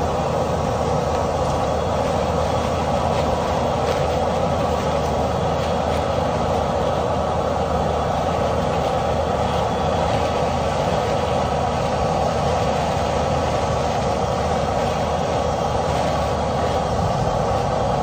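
Powered dryer-vent cleaning equipment running steadily: a loud, even rush of air and motor that does not change, as lint is cleared from the vent duct.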